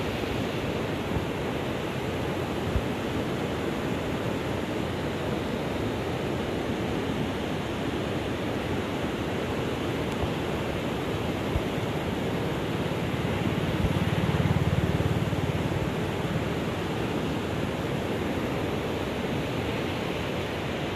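Steady rushing of a fast, rocky river. A low rumble swells and fades about two-thirds of the way in.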